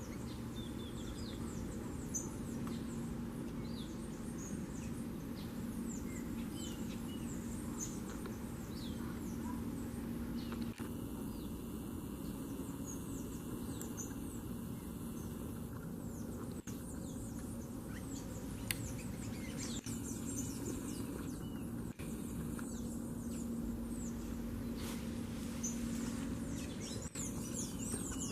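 Wild birds chirping and calling, many short high chirps that sweep downward, scattered throughout, over a steady low background rumble with a faint hum.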